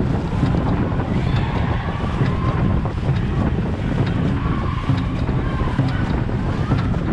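Steady wind rumble on the microphone over water, with faint voices calling far off.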